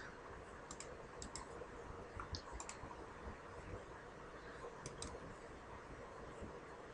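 Faint computer mouse clicks: several short clicks, some in quick pairs, over low room hiss.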